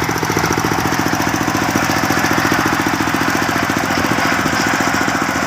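Engine of a small circular sawmill running steadily, with a fast, even pulsing beat.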